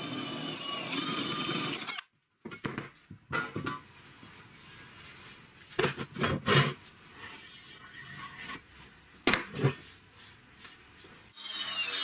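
A power drill with a step drill bit running as it cuts through a steel disc, stopping about two seconds in. Then a few knocks and scrapes as a square steel tube is handled on a wooden bench, loudest about six and nine seconds in, and near the end an angle grinder starts up.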